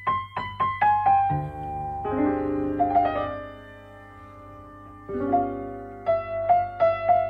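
Piano music: a quick falling run of single notes, then slow held chords, then a few repeated notes near the end.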